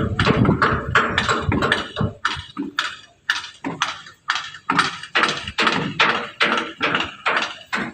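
Rapid, regular knocking or tapping, about three strikes a second, each with a short ringing tail. The strikes come closer together in the first couple of seconds.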